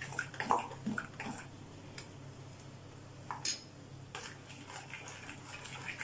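A hand mixing thick ground-rice and vegetable batter in a glass bowl: soft wet squishes in the first second or so, then a couple of sharp clicks against the glass a little past the middle.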